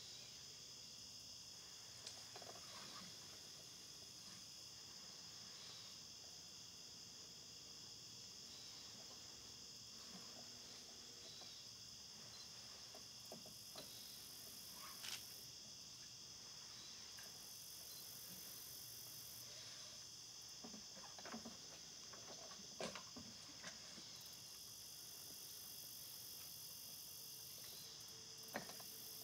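Faint late-summer insect chorus: a steady high-pitched chirring, with a still higher insect buzz that switches on and off several times. A few faint short clicks and rustles are scattered through.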